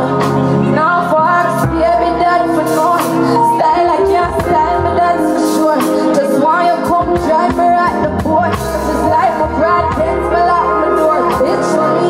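Music: a song with a singing voice over a bass-heavy beat.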